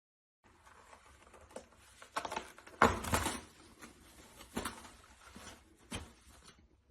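Light knocks and rustling in a small room, with the loudest cluster about three seconds in.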